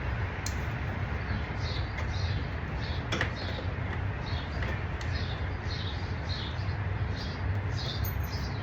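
A small bird chirping over and over, about twice a second, over a steady low rumble, with a few brief clicks.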